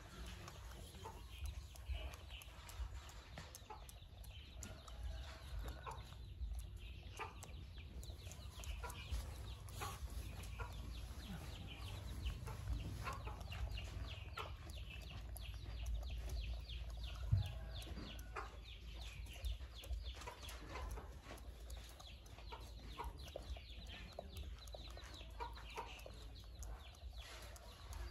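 Macaque's fingers picking and rummaging through a man's hair close to the microphone: soft, irregular rustling and crackling. Clucking fowl are heard in the background.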